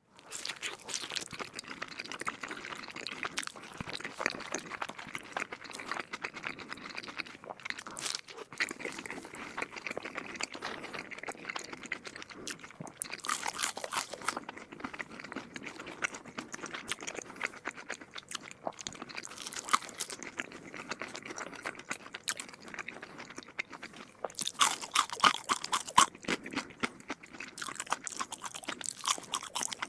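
A person chewing and crunching food close to the microphone: a steady run of wet crackles and crunches, with louder crunching spells about 13, 20 and 25 seconds in.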